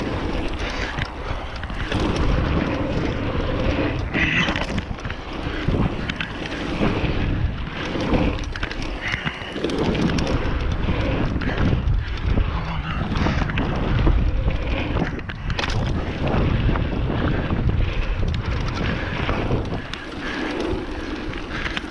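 Wind buffeting a GoPro microphone while a mountain bike rolls fast over a dry dirt jump line, its tyres rumbling on the dirt. Irregular knocks and rattles come through as the bike hits the bumps and landings.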